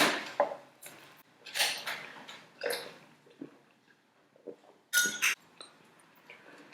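Eating sounds close to the microphone: a few short noisy mouth sounds and light clinks of tableware, with a louder burst about five seconds in.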